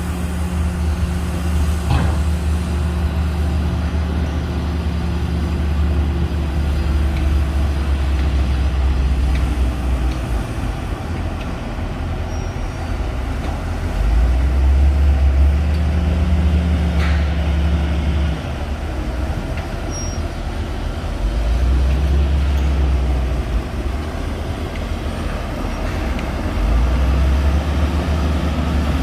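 Heavy earthmoving machine's diesel engine running with a deep drone, swelling louder three times in the second half as it works under load. A couple of brief clicks are heard.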